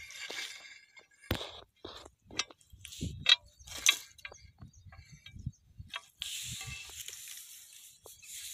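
A handful of sharp clicks and knocks, the loudest about three seconds in, then a rustling hiss for the last two seconds, as a metal hand tool is worked among dry crop stalks on stony soil.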